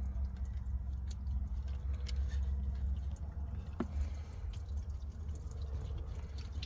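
Cooling water draining and dripping out of an opened drain valve on an OMC Ford Cobra boat engine block, with scattered small ticks and splashes; the block is being drained for winter so that the water can't freeze in it. A steady low rumble runs underneath.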